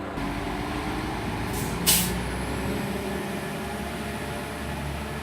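Class 172 Turbostar diesel multiple unit running at the platform, its diesel engines humming steadily, with a short double hiss of compressed air about one and a half to two seconds in, typical of the air brakes releasing before departure. The low engine hum grows stronger after the hiss as the unit gets ready to pull away.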